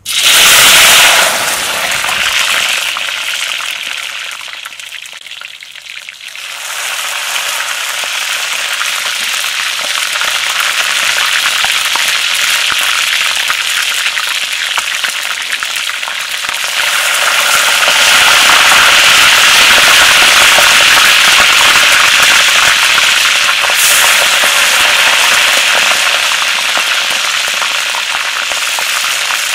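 Whole quail being deep-fried in hot oil in a wok: a loud burst of crackling and sizzling as a bird hits the oil, easing off for a few seconds, then a steady sizzling hiss that builds again and grows louder about halfway through.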